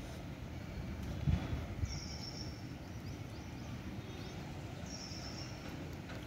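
Steady outdoor background rumble with two short, high bird calls about three seconds apart. A soft thump comes about a second in.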